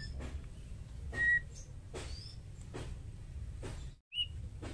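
White-rumped shama giving a few short, separate whistled notes, the loudest a steady clear whistle a little over a second in, over a low steady rumble.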